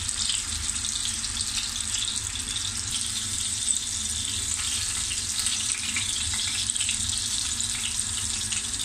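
A block of tofu frying in hot oil in a frying pan: a steady sizzle with small crackles and pops throughout.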